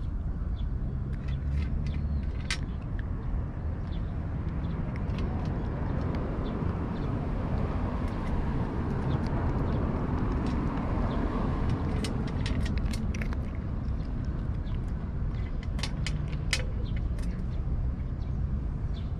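Steady low traffic rumble, swelling about halfway through as a vehicle passes, with two short runs of sharp crunching clicks in the second half that fit cats chewing dry food close by.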